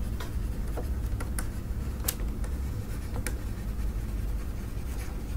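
Stylus writing on a tablet screen: faint, scattered short ticks and scratches as a line of cursive is written, over a low steady hum.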